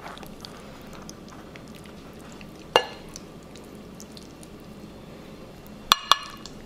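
Metal serving spatula clinking against a glass baking dish and plate as a slice of lasagna is lifted out: one sharp, briefly ringing clink about three seconds in and two quick ones near the end.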